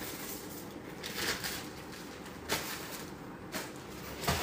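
Plastic and paper packaging rustling and crinkling in bursts as orders are packed by hand, with a louder crinkle just before the end.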